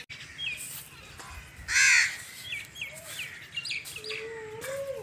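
A crow caws once loudly about two seconds in, while small birds give short high chirps.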